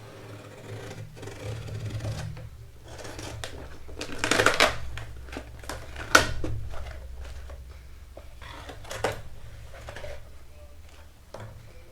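Cardboard box being opened and handled: irregular rustling and scraping with a few sharp knocks, loudest about four and six seconds in.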